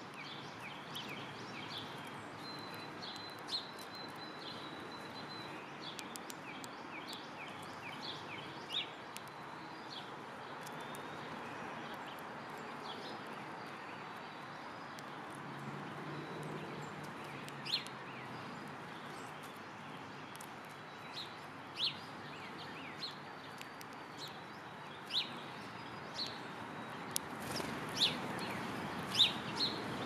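House sparrows chirping: a quick run of short high chirps in the first few seconds, then scattered single sharp chirps that come more often and louder near the end, over a steady background hiss.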